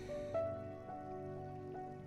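Slow, soft background music of gently struck notes, a new one entering about every half second and each ringing on over a held low tone.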